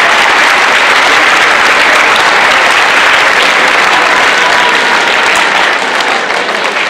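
Crowd applauding: dense, steady clapping that eases off slightly near the end.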